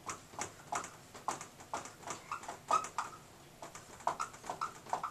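Dry-erase marker squeaking and scratching across a whiteboard as words are written, in short irregular strokes a few times a second.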